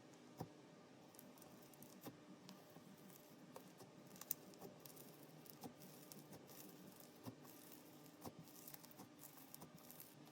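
Faint, scattered small clicks and sticky pops of slime being squeezed and stretched by hand, coming more often in the second half.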